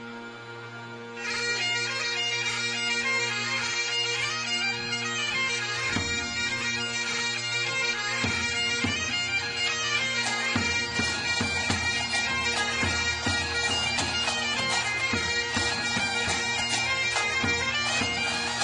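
Background music over a steady drone: a melody comes in about a second in, and drums join about six seconds in, beating more fully from about ten seconds.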